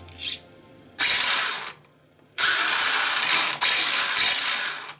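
Kyosho Ultima Pro RC buggy's brushless motor driving its gear drivetrain, with the wheels spinning freely in the air on a stand, in a bench test just after the ESC setup. It runs in two bursts: a short one about a second in and a longer one from about two and a half seconds until near the end.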